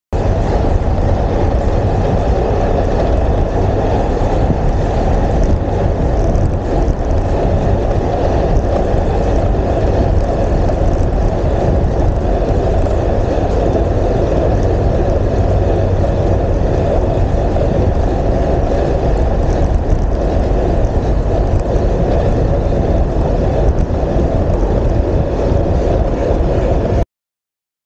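Wind rushing over the microphone of a handlebar-mounted action camera on a fast-moving bicycle: a steady, dense rumble heaviest in the low end. It cuts off abruptly near the end.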